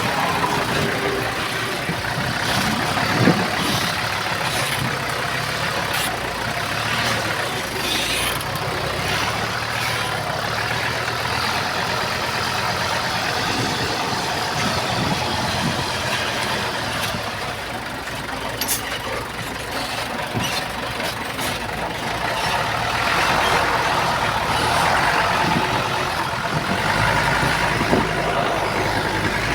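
Heavy earthmoving machinery running: steady diesel engine noise with occasional sharp clanks and knocks, getting somewhat louder a little over two-thirds of the way through.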